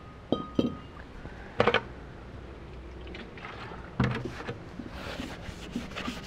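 A paper towel scrubbing the face of a new metal brake rotor with acetone to clean off the packaging's oil residue, with a few knocks and clunks as the rotor is handled on the concrete floor, then a steady rubbing from about five seconds in.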